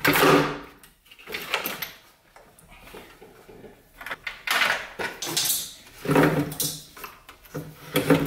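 LS V8 intake manifold and throttle body being worked loose and shifted by hand: a series of separate clunks, scrapes and rattles, the loudest at the start and in the second half.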